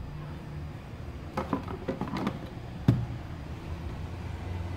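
A plastic picnic cooler's lid is fitted into place around a sous vide circulator: a few quick rattling knocks, then one louder thump about three seconds in as it settles shut. Under it runs the Anova circulator's low steady hum.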